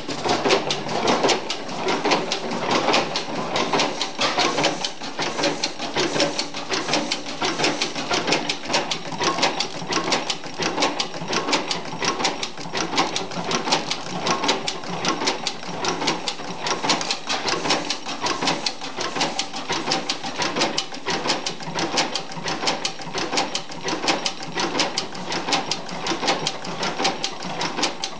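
1903 40 hp Union stationary gas engine running steadily with a fast, even mechanical clatter.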